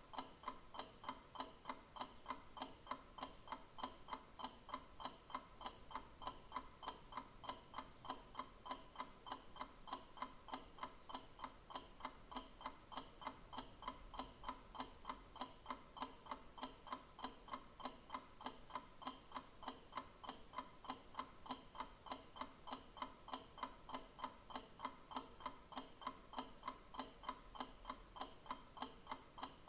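Clock ticking with a steady, even beat of sharp ticks that never changes.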